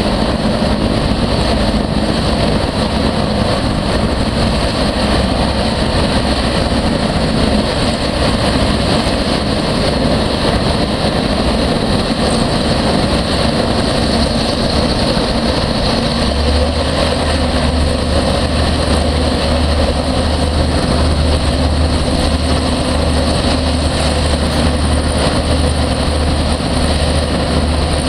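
Griffon 12000TD hovercraft running on its pad, its engines, lift fans and ducted propellers making a loud steady drone while systems are tested. A deeper, steadier low hum comes in a little past halfway.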